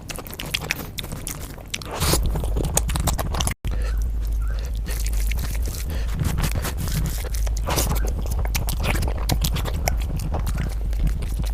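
Close-miked eating sounds: wet chewing and mouth smacks of spicy egg curry being eaten, with many quick clicks and some scraping.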